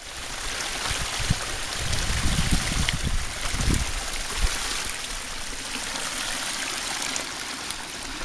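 Small mountain stream trickling and splashing steadily over rocks.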